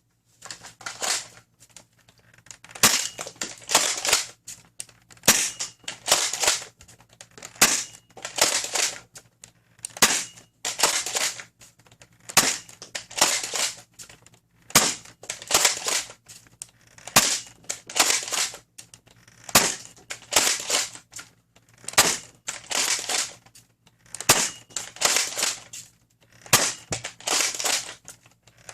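Dart Zone MAX Stryker foam-dart blaster being primed and fired again and again through a chronograph, with about one sharp shot every two and a half seconds. A sliding, rattling noise comes between the shots.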